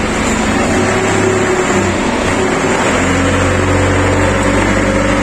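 Steady loud mechanical drone with a low hum; a few steady higher tones join in about three seconds in.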